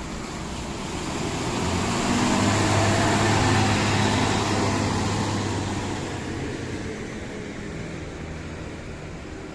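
Intercity diesel coach driving close past: its engine and the hiss of its tyres on the wet road swell to a peak about three seconds in, then fade as it moves away.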